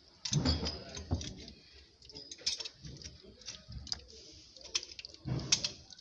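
Scattered metallic clicks and clinks of a wrench and brass pipe fittings being handled while plumbing fittings are tightened, with a couple of brief scraping bursts.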